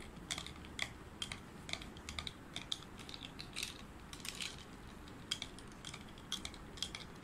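A metal spoon stirring ice cubes in a glass of mango slush: light, irregular clinks of spoon and ice against the glass, a few a second.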